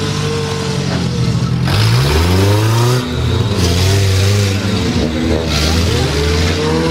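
Lada Niva engine revving hard, its pitch climbing steeply about two seconds in and again near the end.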